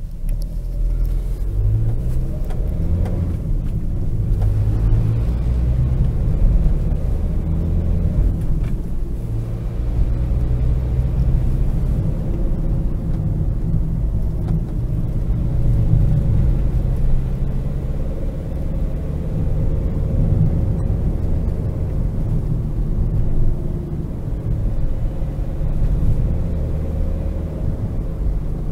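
Cabin sound of a 2004 Opel Vivaro van on the move: its 1.9 CDTI 100 hp four-cylinder turbodiesel droning under load, with road rumble. The engine note rises and falls a little with speed.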